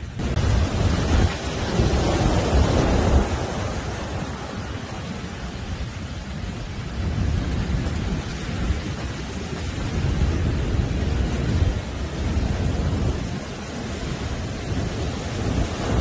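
Heavy, rough surf breaking on a sandy beach: a continuous deep rush and rumble of churning white water that swells as each wave breaks and eases between them, loudest about two to three seconds in.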